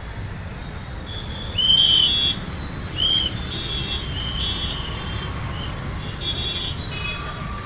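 A traffic whistle blown in several high blasts, the loudest about half a second long around one and a half seconds in, then a short one about three seconds in and fainter ones after, over the steady rumble of passing road traffic.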